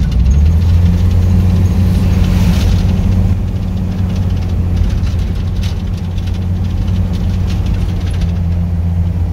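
Vehicle engine and road noise heard from inside the cab while driving, a steady low hum that eases a little about three seconds in.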